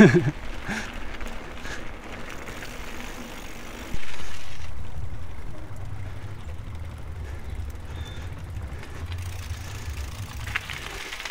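Mountain bike rolling along a path. About four seconds in, a steady low rumble starts suddenly as the tyres run onto the planks of a wooden footbridge, easing off slowly towards the end.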